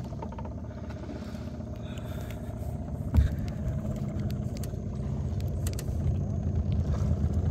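Boat motor running steadily, growing slightly louder, with a single knock about three seconds in.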